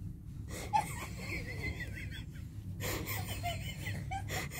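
Stifled, high-pitched giggling and faint voices, with a few brief rustles and a steady low hum underneath.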